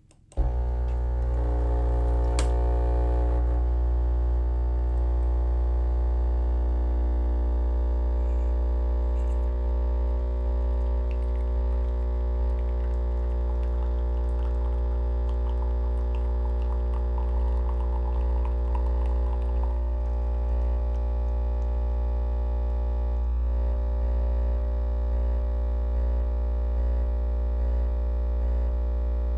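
Lavazza Classy Mini capsule coffee machine's pump buzzing loudly and steadily as it forces hot water through the punctured capsule to brew a lungo. It starts abruptly and cuts off suddenly near the end.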